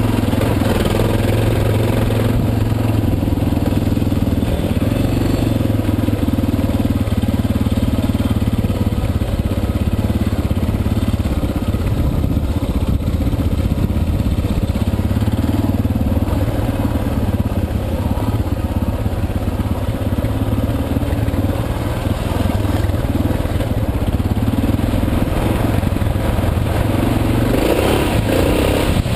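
Suzuki DR650 dual-sport motorcycle's single-cylinder four-stroke engine running as the bike is ridden along a dirt trail, the revs rising and falling several times with the throttle.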